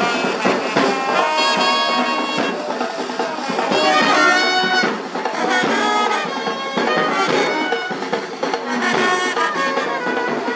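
Brass band playing a tune outdoors, trumpets carrying the melody in held notes that change every second or so.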